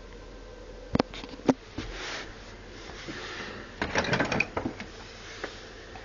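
Argos Value dehumidifier's fan running with a steady whirr and a faint hum. Over it come handling noises: two sharp clicks about a second in, then a cluster of plastic knocks and clatter around four seconds in.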